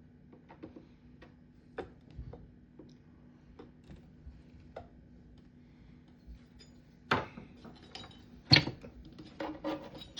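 Light scattered clicks and taps of a subwoofer's casing and parts being handled and pried apart during disassembly, over a faint steady hum. Two sharper, louder knocks come about two-thirds of the way through.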